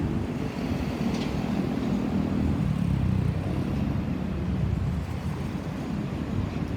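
Low, steady rumble of road vehicles, with no siren sounding.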